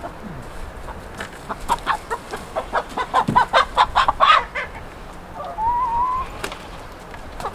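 Hen clucking as she is caught by hand: a quickening run of short clucks, about four or five a second, then one longer call that rises in pitch.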